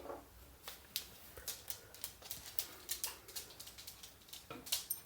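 Quiet, irregular small clicks and taps, two or three a second.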